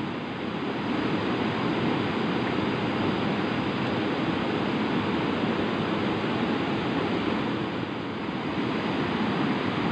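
Steady rushing of a fast-flowing river current over rocks, an even wash of water noise without breaks.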